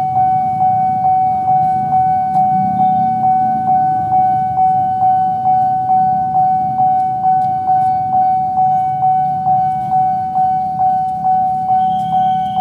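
Level-crossing warning bell, a Nippon Signal electronic unit, ringing steadily at about two strikes a second over a low rumble.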